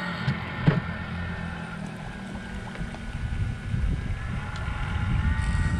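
Small brushless drone motors driving a cardboard electric boat, giving a faint steady whine over wind rumbling on the microphone. There is a single light knock under a second in.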